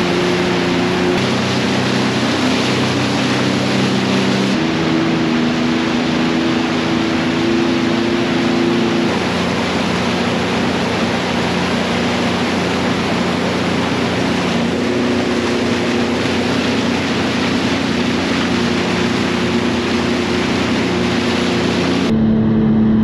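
Sea-Doo GTX jet ski running at speed, its engine a steady drone that shifts pitch a few times, under a heavy rush of wind and water spray.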